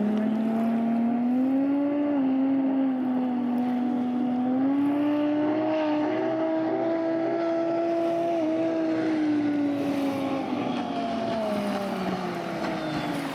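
Turbocharged Ford Barra straight-six inboard boat engine running under load, its pitch climbing slightly, holding steady, then easing off near the end.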